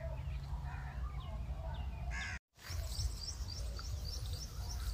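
Birds calling outdoors over a steady low wind rumble on the microphone. The sound drops out for a moment about halfway through, then a quick run of short high chirps repeats several times a second.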